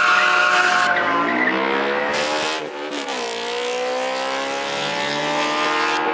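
A BMW Z4 and a Cupra accelerating hard from a drag-race launch, with tyres squealing briefly at the start. Engine pitch climbs, drops at a gear change about three seconds in, then climbs again.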